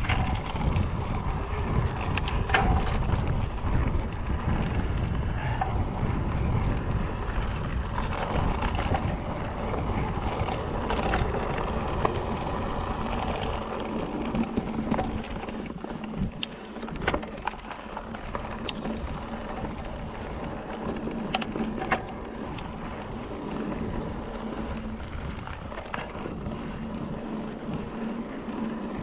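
Mountain bike ridden over a rough trail: tyres rolling on rock and gravel with scattered sharp rattles and knocks, and wind buffeting the microphone, heaviest in the first dozen seconds.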